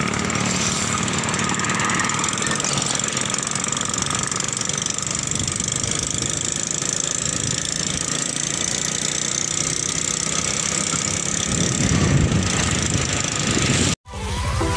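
Motorcycle engine running steadily while riding along a road. It cuts off abruptly about a second before the end.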